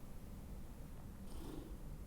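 Faint steady low hum of room tone, with one brief soft rustle about one and a half seconds in.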